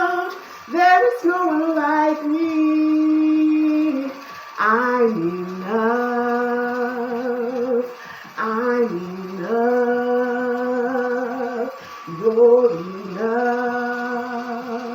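A woman singing unaccompanied in four slow phrases, holding long notes with vibrato.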